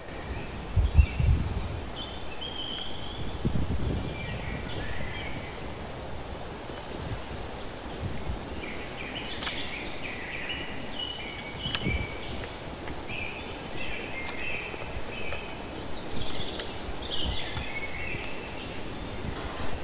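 Small birds chirping on and off in the background, over quiet outdoor ambience. A few dull thumps, the loudest about a second in, and light sharp clicks come from a knife and hands working on a wooden cutting board.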